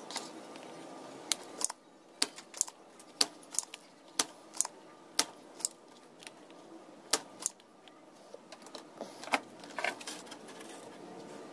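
Irregular sharp clicks and taps, about fifteen of them, as a soldering iron and tools work a TV power-supply board to desolder a FET. A faint steady hiss stops about two seconds in.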